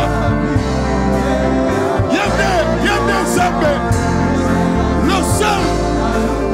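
Live gospel worship music: a choir singing together into microphones over sustained instrumental chords and a held bass line.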